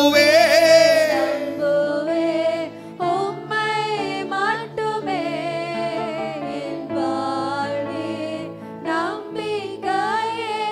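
A slow Tamil worship song: a man's voice sings long, bending held lines over sustained backing chords.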